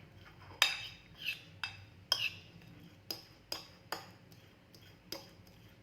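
A metal fork clinking against a dish as it mashes soft boiled garlic cloves: a series of sharp taps, about two a second and unevenly spaced.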